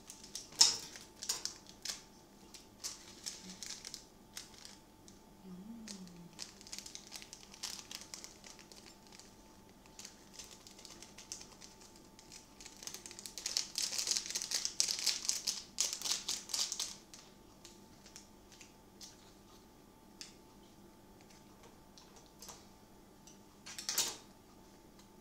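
Plastic instant-noodle seasoning sachets being handled and torn open by hand: scattered crinkles and clicks, with a denser stretch of crinkling and rustling around the middle and a sharp snap near the end.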